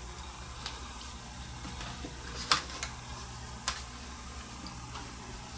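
A few small, sharp clicks and taps of jewelry parts and tools being handled as small pieces are twisted off, the loudest about halfway through, over a steady low hum.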